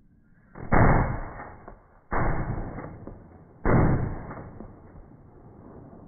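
Three gunshots about a second and a half apart, each trailing off in an echo over about a second.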